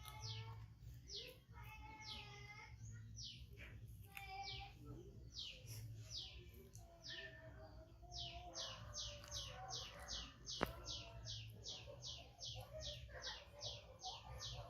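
Bird calling: short, high chirps that drop in pitch, scattered at first and then repeated evenly about three times a second in the second half. A single sharp click about ten and a half seconds in.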